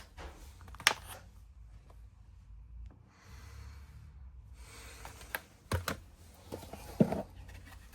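Handling of a box of watch crystals: a few separate sharp clicks and taps, with a soft rustle in the middle.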